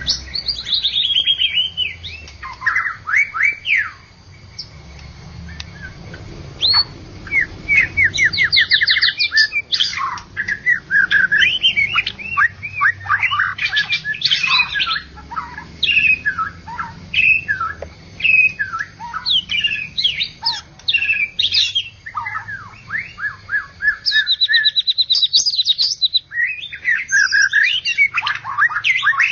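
White-rumped shama (murai batu) singing a long, varied song of rapid trills, sliding whistles and chattering phrases, broken by short pauses.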